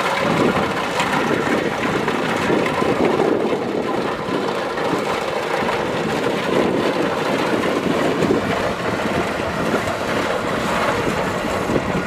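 Kubota DC-70 Plus combine harvester's diesel engine and machinery running steadily while harvesting rice, a dense, even mechanical noise.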